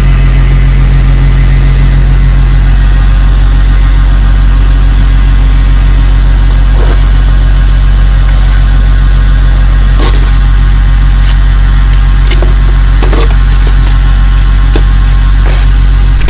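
An engine running at a steady idle, a loud constant low drone, with a few short clicks and knocks over it.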